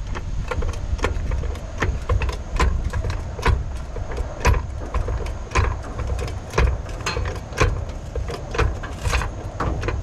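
Hydraulic floor jack being pumped under load, a quick run of metallic clicks and knocks about two a second, as it squeezes a copper lug onto heavy 1-gauge battery cable to crimp it.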